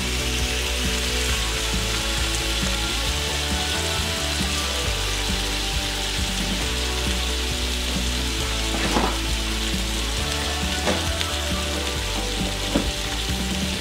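Bacon strips sizzling in a nonstick frying pan, rendering their fat, with a few sharper pops from about nine seconds in.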